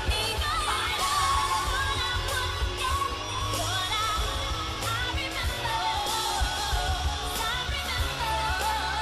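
Pop song with a sung vocal line over bass and drums.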